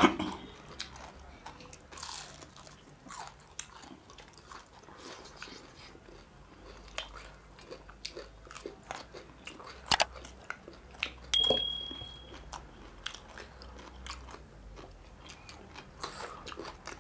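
Close-up eating sounds of two people eating with their hands: chewing and biting into fried fish and raw cucumber, with scattered small crunches and clicks. A brief high tone sounds for about a second a little past the middle.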